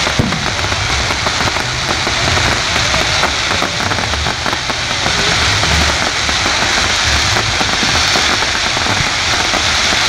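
Fireworks display crackling densely and without a break, like heavy rain, with low thuds underneath now and then.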